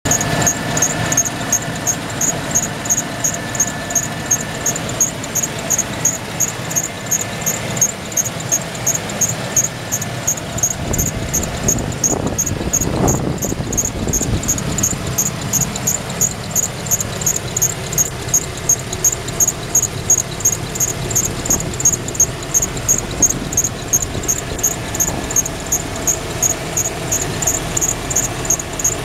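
1995 Ford Flareside pickup's engine idling, with a sharp, high-pitched chirp repeating evenly about three times a second.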